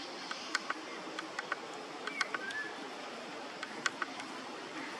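Outdoor forest ambience: a steady hiss with scattered sharp clicks and one short, bending chirp about two seconds in.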